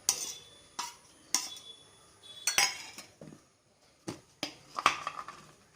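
A spoon clinking and knocking against a bowl, about seven separate knocks, a few with a short ring, as ginger-garlic paste is spooned into the flour for batter.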